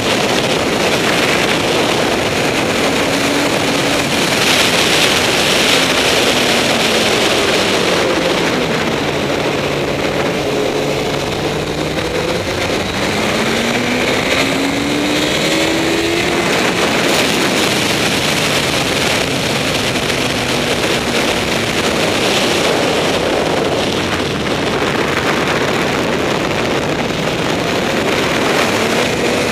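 Honda CBR954RR's inline-four engine at speed on track, heard through heavy wind rush on the microphone. The revs fall away about ten seconds in and then climb again as the bike drives on.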